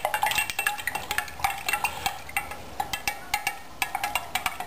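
A stirrer knocking against the inside of a large glass jar of vinegar as calcium hydroxide (lime) is stirred in. It makes quick, irregular clinks several times a second, and the glass rings briefly after each one.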